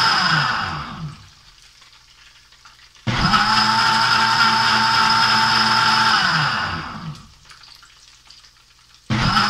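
Instant Pot Ace Plus blender motor pureeing hot purple yam soup on its smoothie program, running in pulses: it winds down with a falling whine about a second in, pauses, starts again sharply about three seconds in, runs for about three seconds, winds down, and starts once more near the end.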